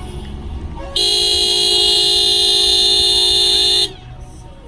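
A single loud horn blast: one steady note held for about three seconds, starting about a second in and cutting off sharply.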